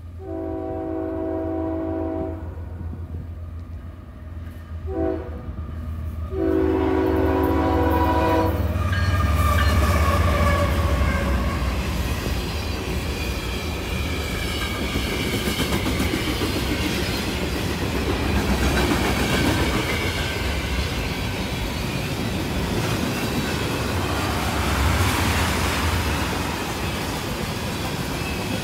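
A diesel freight locomotive's chime horn sounds three blasts: a long one, a short one, then another long one. The locomotives then pass, and a long freight train of tank cars rolls by with a steady, loud rumble of wheels on rail.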